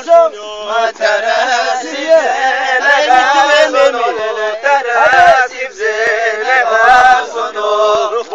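Several men singing a Zazaki halay folk song together, their voices overlapping, with a couple of low thumps about five and seven seconds in.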